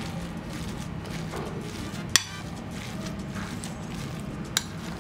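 Metal spoon scraping and knocking against a glass mixing bowl as a soft potato filling is stirred, with two sharp clinks, one about two seconds in and one near the end, over a low steady hum.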